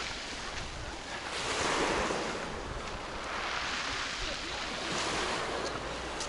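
Black Sea surf washing in, swelling and easing about twice, with a low wind rumble on the microphone.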